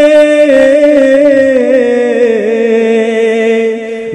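A man singing a naat in Urdu, holding one long note and drawing it out with slow wavering ornaments that sink gradually in pitch through the second half.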